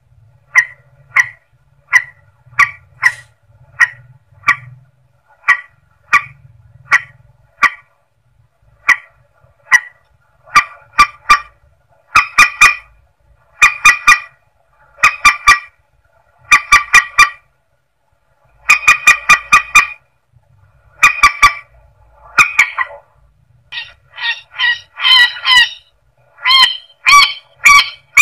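Mandar sawah, a rail, calling over and over: short honking notes in clusters of two to four, with the clusters coming closer together and growing louder toward the end. A recorded lure call.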